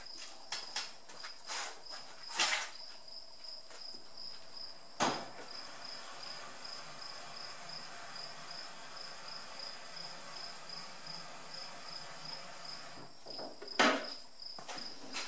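A few sharp metal clunks and knocks as a two-post lift lowers the car body down over the pre-assembled engine, transmission and subframe. A steady high chirp repeats about twice a second underneath.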